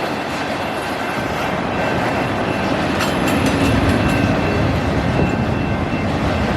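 Autorack freight cars rolling past on the rails, a steady rumble and rattle of wheels and cars, growing a little louder midway, with a faint steady high ringing over it.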